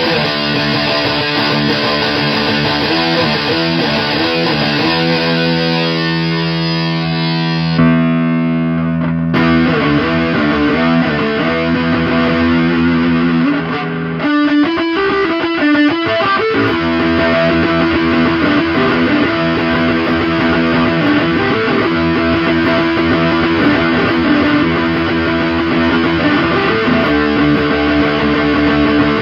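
Electric guitar playing heavy, fuzz-distorted chords and riffs through an overdrive pedal driving a fuzz pedal into a solid-state guitar amplifier, with a brief break in the playing about 14 seconds in.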